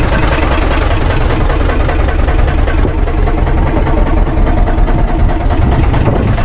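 Fishing boat's engine running steadily at idle.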